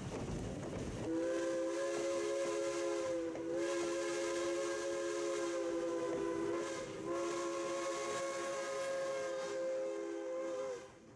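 Steam chime whistle of CNJ No. 113, an 0-6-0 steam locomotive, blown in one long blast of several notes that begins about a second in, wavers twice, and cuts off sharply near the end. The rumble of the passing train comes just before it.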